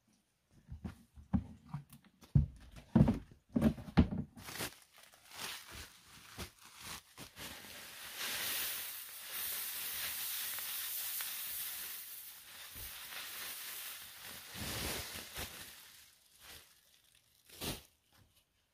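Knocks and thumps as soil is emptied from a plastic bucket onto a pile, then rice husks poured onto the heap with a steady dry hiss lasting about eight seconds, ending in a few light clicks.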